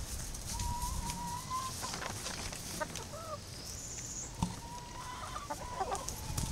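Hen clucking and giving two long, level whining calls, one near the start and one near the end, with a short rising-and-falling call in between: a hen protesting at being picked up and held, wanting to be put down.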